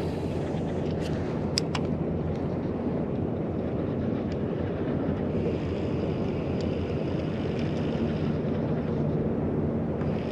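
Wind buffeting the microphone on an open boat, a steady rushing noise, with a few light clicks in the first two seconds.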